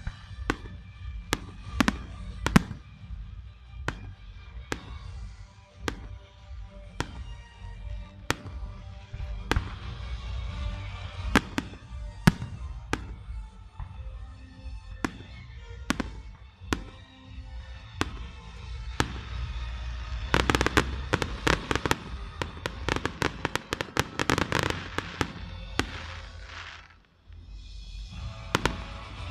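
Aerial firework shells bursting, a sharp bang every second or so, then a rapid salvo of many bangs and crackling about twenty seconds in. Music plays underneath throughout.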